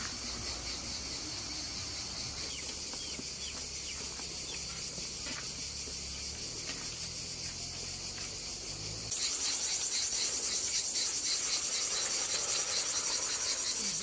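Crickets chirping in a steady, pulsing chorus that grows louder about nine seconds in, with a few faint bird chirps in the first half.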